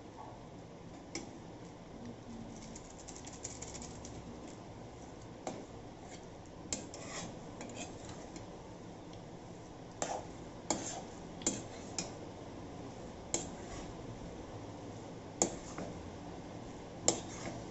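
Metal spatula scraping and clinking against a kadai while stir-frying noodles: irregular sharp knocks and scrapes, roughly one every second or two, the loudest two near the end.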